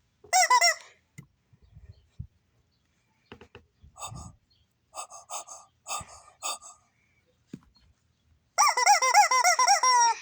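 Loud honking squawks with a wobbling pitch: a short one just after the start, a few quieter short squeaks in the middle, and a longer wavering honk near the end.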